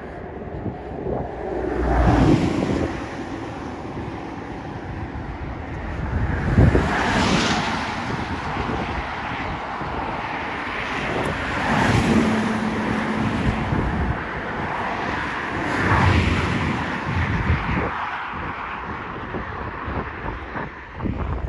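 Wind gusting across the phone's microphone, a rushing rumble that swells and eases about every four to five seconds, with a brief low steady hum about twelve seconds in.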